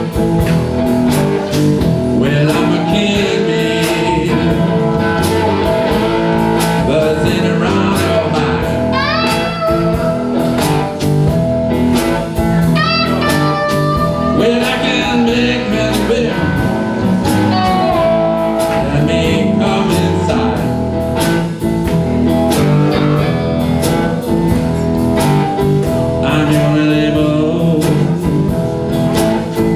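Live blues band playing over a steady drum beat, led by homemade box-bodied guitars (cigar-box style) with sliding notes that rise in pitch about nine and thirteen seconds in. Sung vocals come in at times.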